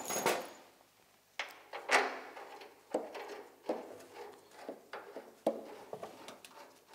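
Metal clicks and knocks from fitting a bolt and washer into the steering arm of a 1971 Ski-Doo Elan snowmobile. A sharp knock at the start and another about two seconds in are followed by lighter irregular taps.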